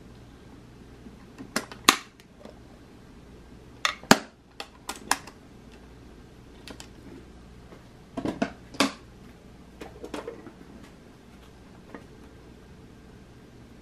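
Hard Lucite (acrylic) handbags being handled: sharp clicks and knocks of the plastic bodies, lids and metal clasps in several short clusters, the loudest about two and four seconds in.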